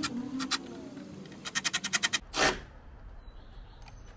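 Ratcheting tool clicking rapidly in two short runs, about a dozen clicks a second, as a fastener is turned while fitting a table to the Jeep's tailgate. A short scrape follows about two and a half seconds in.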